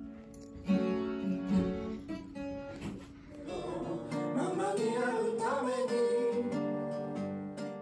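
Acoustic guitar playing, with a singing voice coming in about halfway through.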